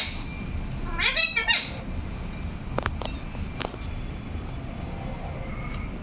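Young rose-ringed parakeet calling: one harsh, falling call about a second in, then a few sharp clicks around the middle.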